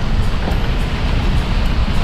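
Heavy rain falling steadily, an even hiss over a low rumble, heard from inside a vehicle.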